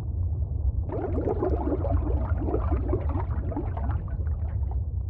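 Cartoon underwater bubbling sound effect: a dense stream of short rising bubble blips starts about a second in and stops shortly before the end, over a steady low rumble.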